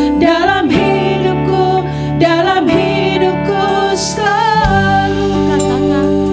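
Live worship band playing a slow song between sung lines: sustained keyboard chords over electric bass, with electric guitar and drums, and a melodic line above them.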